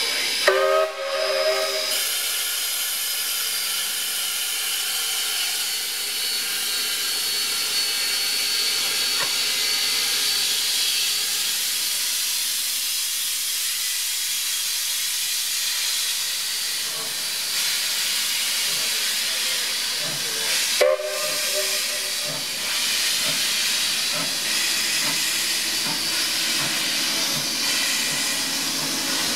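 BB18¼ class 4-6-2 steam locomotive hissing steadily with escaping steam, giving two short whistle blasts, one just after the start and another about 21 seconds in, as it gets ready to depart. Near the end it pulls away, with steam hissing from around the cylinders.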